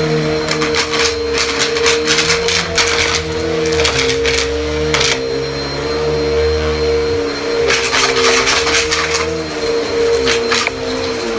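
Upright bagless vacuum cleaner running on a rug, with a steady motor whine and a lower hum that shifts in pitch as it is pushed back and forth. Bursts of crunchy crackling and rattling come and go as the brushroll picks up the spread-out debris.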